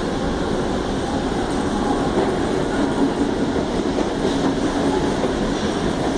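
SuperVia electric commuter train moving past along the far platform track, a steady running noise of the passing cars.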